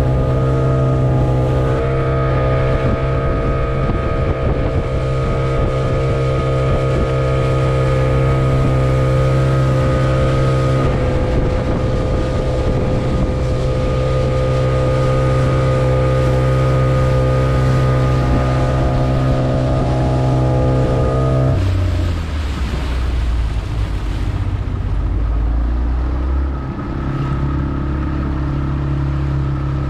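Speedboat engine running steadily at speed, with water rushing past the hull. About two-thirds of the way through, the engine note drops sharply and runs on lower.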